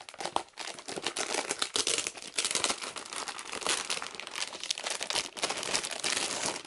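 Dense, continuous rustling and crinkling with many small clicks, from a boxed ticket album and its packaging being handled and turned over in the hands.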